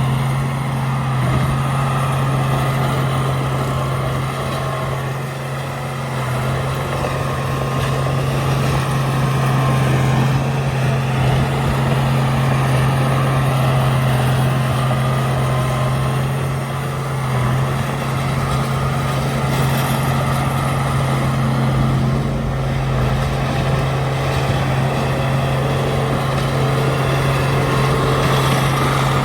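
Diesel engine of a Komatsu D31A bulldozer running steadily under work, a continuous low hum.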